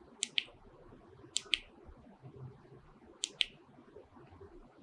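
Handheld presentation remote button pressed three times, each press a quick pair of sharp clicks, stepping through the slides.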